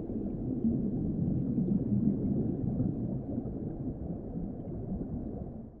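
Low, muffled underwater rumble and wash with no clear pitch, fading out near the end.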